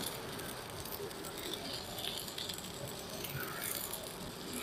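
Stick-welding arc from a JACPRO ARC200PRO inverter welder set at 150 A: a steady, even sizzle with many small crackles as the electrode burns along the steel plate.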